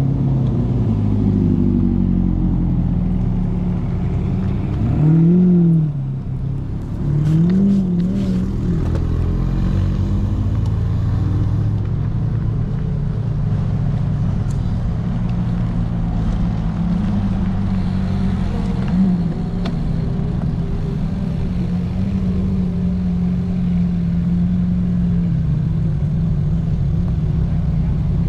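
Several supercar engines running at low speed, with short revs that rise and fall about five and eight seconds in, then running steadily.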